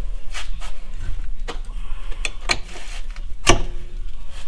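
Metal-on-metal clicks and knocks of a large steel punch being worked into bolt holes to line up the suspension parts around a new wheel bearing hub, with one sharp metallic strike about three and a half seconds in that rings briefly.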